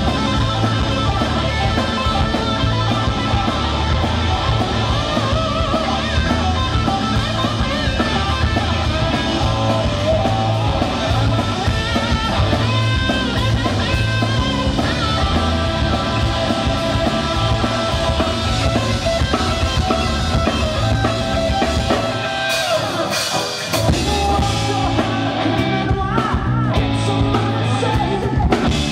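Live rock band playing: two distorted electric guitars over bass and drum kit. About 22 seconds in, the bass and drums drop out briefly, then the full band crashes back in, and lead vocals join near the end.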